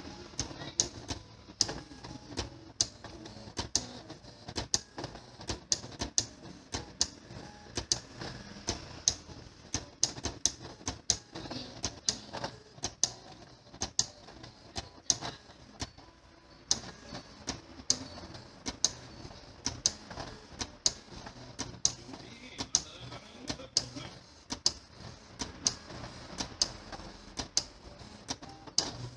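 Printer-plotter mechanism running, making sharp, somewhat irregular clicks about two a second, with a short pause around the middle.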